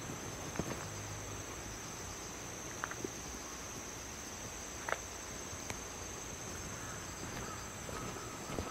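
Steady high-pitched chirring of insects over a low outdoor hiss, with a few scattered light clicks. A faint steady higher tone joins near the end.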